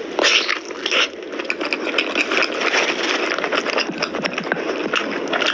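Close-miked chewing and mouth sounds of someone eating mutton nalli curry: a dense, unbroken run of small clicks and smacks.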